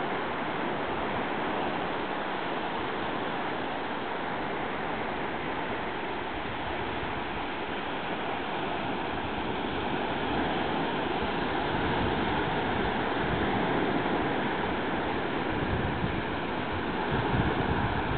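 Ocean surf washing onto a sandy beach: a steady rush of breaking waves, growing a little louder in the second half, with wind buffeting the microphone near the end.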